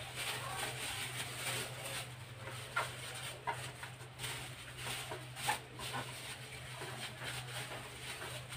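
Plastic wrap crinkling and rustling in irregular bursts as hands roll and press a stuffed chicken breast inside it on a plastic cutting board, with a steady low hum underneath.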